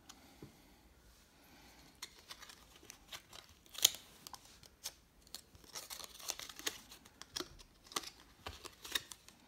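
Folded paper playing cards handled and pressed together in the fingers: a string of sharp clicks and crisp rustles of card stock, the loudest about four seconds in.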